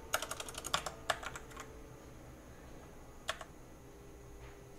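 Typing on a computer keyboard: a quick run of about a dozen key clicks in the first second and a half, then one more click a little past the middle.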